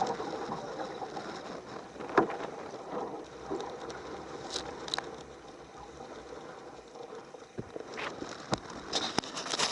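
Water sloshing against a kayak hull in the wind, with scattered knocks on the hull, the loudest about two seconds in and a cluster near the end.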